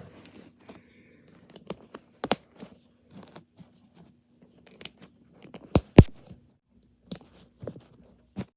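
Plastic Mathlink cubes being handled and snapped together: a string of sharp plastic clicks at irregular intervals, the loudest two in quick succession about six seconds in.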